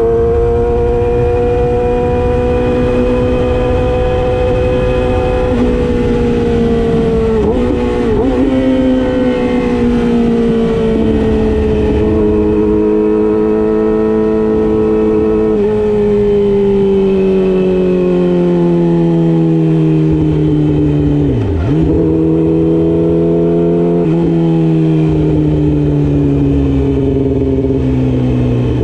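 Yamaha YZF-R6's inline-four engine running under way, its pitch drifting slowly and jumping at several gear changes, with two brief sharp dips in revs, about a quarter of the way in and about three quarters of the way in.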